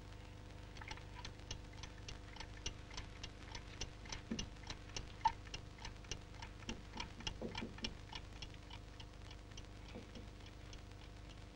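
Clock ticking steadily and faintly, about three ticks a second, starting about a second in, over a low steady hum.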